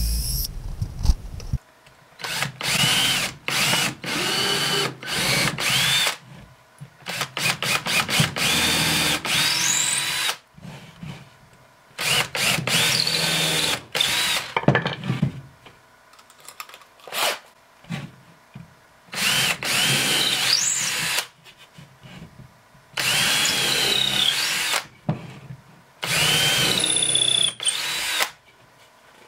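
Cordless drill with a countersink bit boring a series of pilot holes into a hard maple plate. It runs in bursts of a few seconds each, with short stops and quick trigger blips between them. At the start of several bursts the motor whine rises as it speeds up.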